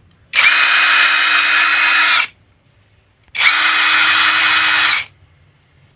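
MHR Tools 21V cordless impact wrench run twice with no load, each run about two seconds: the motor whirs at a steady pitch, spins up quickly when the trigger is pulled, and winds down when it is released.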